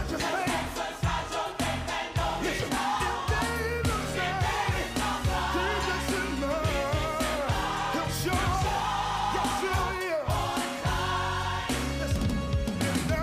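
Gospel music: voices singing with vibrato over a band with bass and drums.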